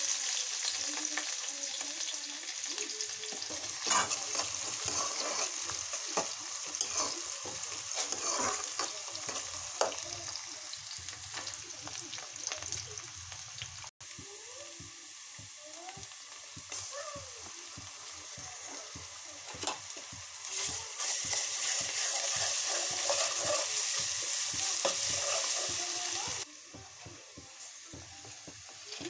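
Chopped onions sizzling as they fry in hot oil in a steel kadai, with short scrapes and clinks of stirring through the sizzle. The sizzle drops suddenly quieter near the end.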